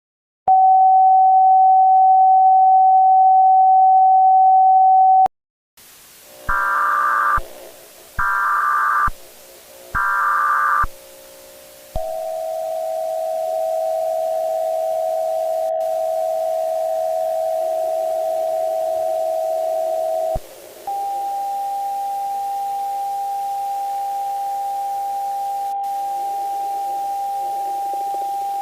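Electronic alert tones. A steady single tone sounds for about five seconds and then stops. After a short gap come three one-second bursts of data-like buzzing, in the manner of an Emergency Alert System header, then a long steady tone, a brief break, and another steady tone slightly higher in pitch.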